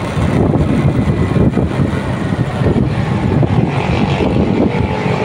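Motorcycle riding at road speed: a loud, uneven rush of engine, road and wind noise on the phone's microphone.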